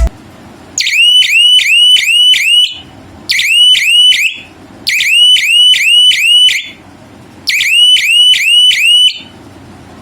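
Electronic alarm horn of a homemade bicycle motion alarm sounding in four bursts of quick rising chirps, about three a second. The bursts last one to two seconds, with short gaps between them.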